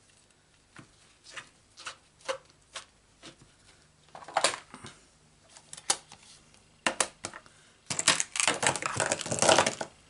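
Stamping supplies being handled on a craft desk: a clear photopolymer stamp and its plastic stamp case tapped, clicked and shuffled. There are a few light taps in the first three seconds, sharper clicks around the middle, and a dense rustling clatter in the last two seconds.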